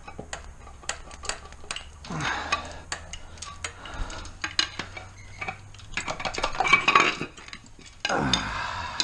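Metal clinks, knocks and scrapes as a tight flywheel is worked off an engine's crankshaft, the clatter loudest and thickest about seven seconds in.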